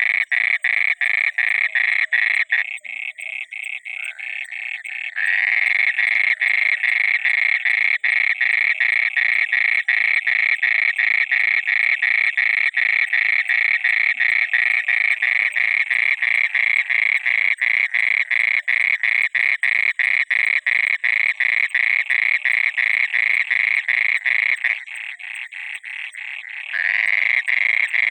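A frog calling without a break, a fast, even train of croaking pulses. It drops quieter twice for a couple of seconds, about three seconds in and again near the end.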